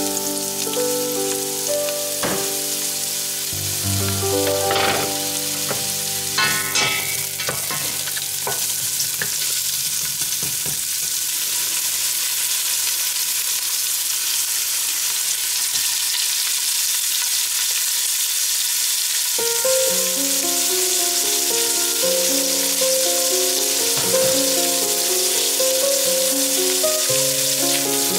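Chopped onions frying in olive oil in a stainless steel pot, a steady sizzle, with a few knocks early on as ham goes in and a wooden spatula stirs.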